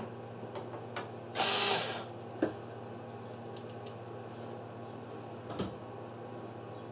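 Sealey MIG welder switched on and humming steadily from its transformer and cooling fan, with a short rushing burst about a second and a half in and sharp mechanical clicks twice.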